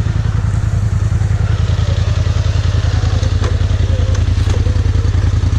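ATV engine running at low, steady revs, with a couple of sharp knocks from the machine about three and a half and four and a half seconds in.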